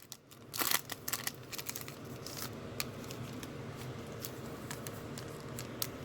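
Plastic wrapper of a Panini Prizm trading-card pack crinkling as it is worked open by hand, with a cluster of sharp crackles about a second in and scattered small clicks after.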